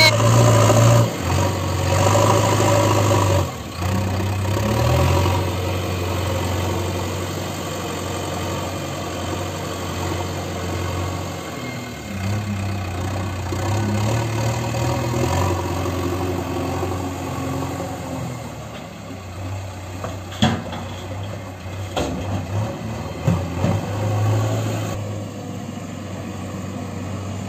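JCB 3DX backhoe loader's diesel engine running, its pitch rising and falling as the machine works and drives. A few sharp knocks stand out about two-thirds of the way through.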